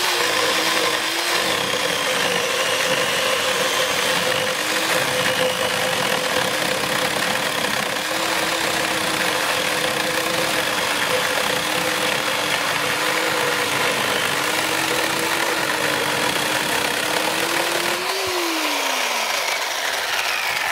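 WORX WG305 14-inch corded electric chainsaw cutting through a dry log: a steady motor whine that wavers as the chain bites, over the rasp of the chain in the wood. About two seconds before the end, the trigger is released and the motor winds down in falling pitch.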